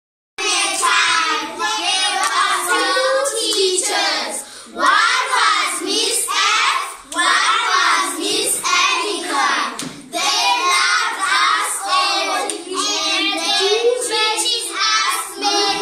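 A group of children singing together, with hand claps. The singing starts abruptly about half a second in.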